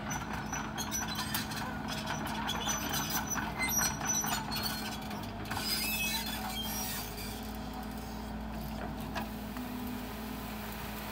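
Sumitomo SH130 excavator's diesel engine running steadily as the machine works its arm and tracks toward brush, with scattered clicks and knocks through roughly the first two-thirds.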